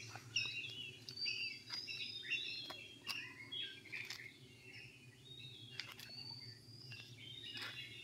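Several wild birds chirping and calling all around, many short high chirps and whistles overlapping.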